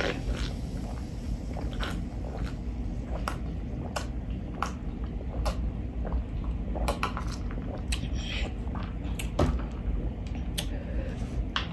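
Close-miked drinking of soda from a plastic cup: a string of swallows and small mouth clicks over a steady low hum. Near the end, a sharper knock as the plastic cup is set down on the table.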